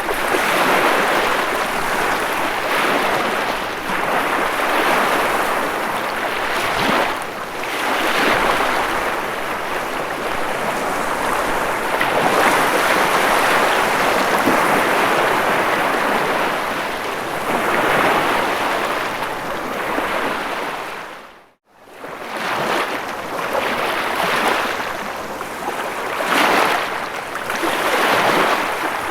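Ocean waves washing on a shore: a continuous rush of surf that swells and eases every few seconds. The sound cuts out abruptly for a moment about three quarters of the way through, then resumes.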